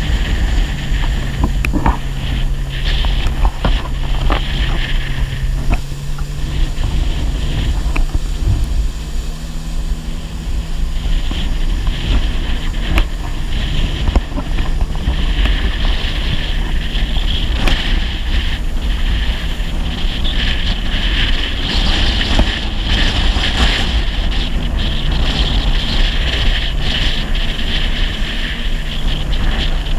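Personal watercraft engine running under way, its pitch shifting several times with the throttle, over water rushing past the hull and wind buffeting the microphone.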